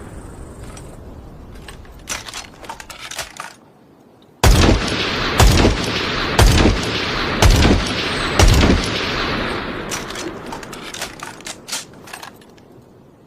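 Marksman rifle sound effect: five loud shots about a second apart, each with a booming echo that trails off. Short runs of clicks come before and after the shots.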